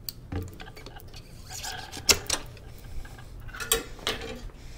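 Scattered metallic clicks and knocks as the rear wheel of an e-bike is worked loose and taken out of the frame in a repair stand, the loudest clank about two seconds in.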